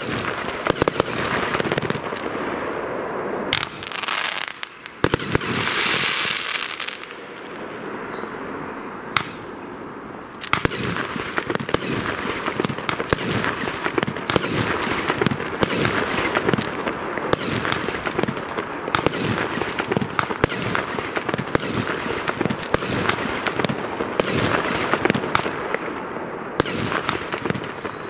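Geisha Event Immortal Gold, a 100-shot 30 mm consumer fireworks battery, firing: rapid launches and shell bursts. Around five to seven seconds in there is a stretch of hiss and crackle, then a quieter spell, and from about ten seconds on the shots come thick and fast.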